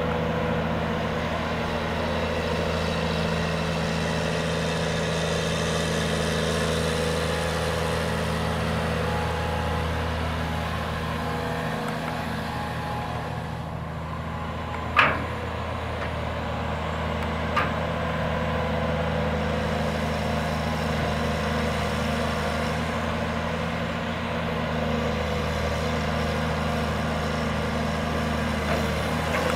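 Caterpillar 330D L hydraulic excavator's six-cylinder C9 diesel running steadily as the machine is manoeuvred on its tracks. A sharp knock is heard about halfway, and a lighter one a few seconds later.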